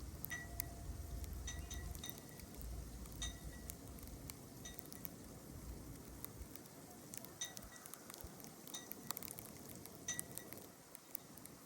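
Wind buffeting the phone's built-in microphone as a low rumble that eases off after about six seconds, with faint scattered light ticks throughout.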